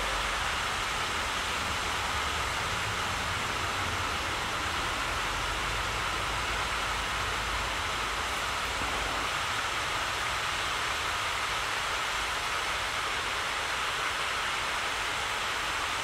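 Steady outdoor rushing noise with no bird calls. A low rumble underneath fades out about halfway through.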